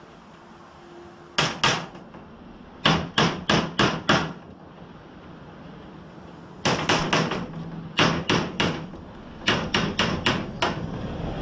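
A hammer tapping a dowel into a tight hole in the easel frame: several quick runs of sharp knocks, a few a second, with short pauses between the runs.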